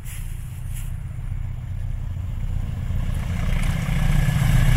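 Diesel locomotive hauling passenger coaches approaching along the line. Its engine rumble grows steadily louder, with wheel-on-rail noise rising in the last couple of seconds as it nears.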